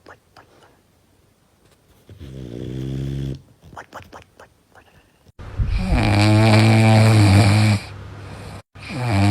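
Dogs snoring in their sleep. A shorter low-pitched snore comes about two seconds in, with soft clicking breaths around it. A much louder, low-pitched snore starts abruptly about five and a half seconds in and lasts over two seconds, and another loud snore begins near the end.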